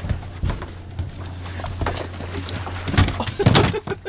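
Boat engine idling with a steady low hum, under a series of knocks and thumps from bare feet and body against a fiberglass deck, the loudest about three seconds in.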